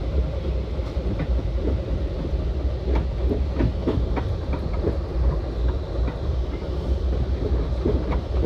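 Metra commuter train heard from inside a passenger car while running at speed: a steady low rumble of wheels on rail. From about three seconds in come many short, sharp clicks and knocks from the wheels on the track.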